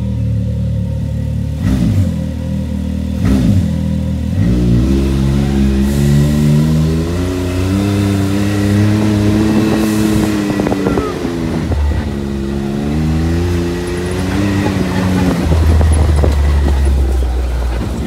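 Can-Am Maverick X3 side-by-side's turbocharged three-cylinder engine idling steadily just after starting, with two short knocks. After about four seconds it pulls away, and the engine note rises and falls again and again with the throttle as it drives.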